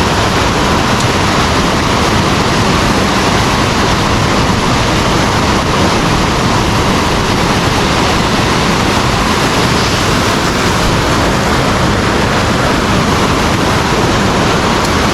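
Loud, steady rush of high water pouring through a flooded river spillway, the river still rising.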